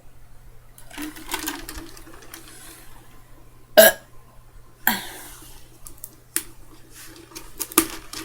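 A person burping after drinking water: one loud short burp about four seconds in and a second, weaker one about a second later. Several sharp clicks follow near the end.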